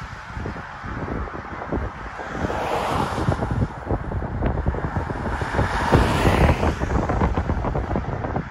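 Wind buffeting the microphone, with cars passing on the highway close by: swells of tyre and road noise rise and fade about two and a half seconds in and again around six seconds.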